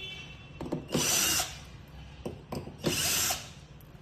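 Power drill running in two short bursts of about half a second each, with a few clicks before each burst.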